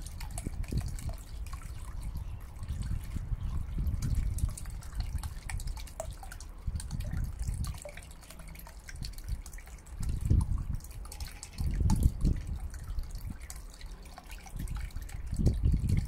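Small submersible fountain pump bubbling water up in a shallow tray: steady splashing and trickling, with low rumbles that swell and fade every few seconds.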